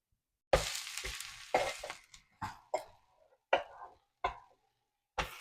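Pesarattu (green gram dosa) cooking on an electric griddle: a burst of sizzling about half a second in that fades, then several short scrapes and taps of a spatula on the griddle as the dosa is loosened and turned.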